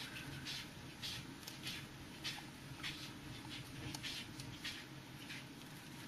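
Faint, irregular scratchy rustles, a couple a second: a green tree python's scales rasping against the wooden perch as she crawls along it.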